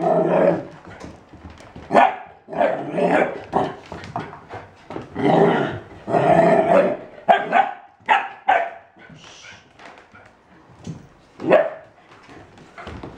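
German Shorthaired Pointer and Golden Retriever puppies play-fighting, barking and growling in a run of short loud bursts that thin out in the second half, with one more burst near the end.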